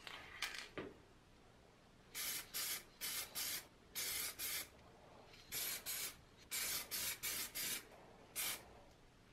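Aerosol spray paint can spraying in short bursts of hiss: about a dozen quick puffs in groups of two to four. A few light clicks before the spraying starts.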